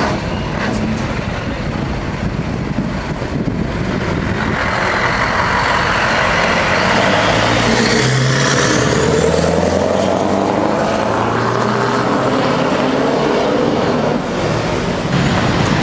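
Scania R500 V8 truck's diesel engine running loud as it drives past, growing louder about four seconds in, its pitch rising and falling with the revs.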